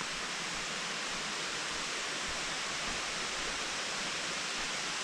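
A waterfall rushing with a steady, even hiss of falling water.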